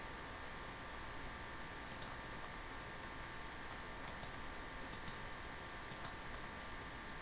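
A few faint, scattered computer mouse clicks over a steady background hiss and hum.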